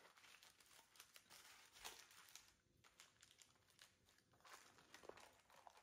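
Aluminium foil crinkling faintly as it is peeled open from around a rack of ribs, in scattered soft crackles.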